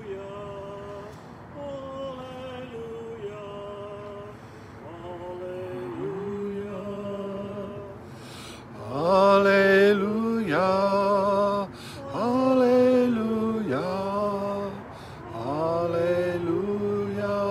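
Voices singing a slow hymn in long held notes with a slight waver, soft at first and becoming much louder about halfway through.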